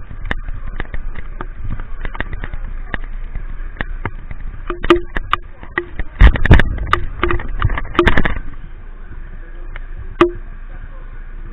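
Raindrops tapping and clicking irregularly on a body-worn camera over a steady hiss of rain, with a louder run of knocks and rubbing against the camera about six to eight seconds in.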